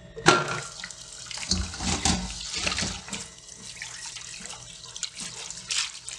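Water splashing into a stainless steel kitchen sink as pineapple peels are rinsed in a metal mesh strainer, with water poured over them from a small metal bowl. There is a steady wash of water with several short, louder splashes.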